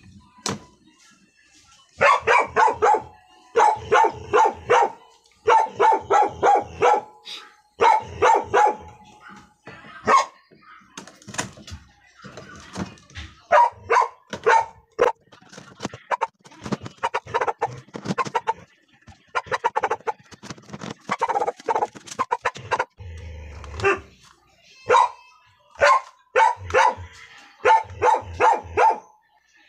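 A dog barking again and again in quick runs of several barks, with short pauses between the runs.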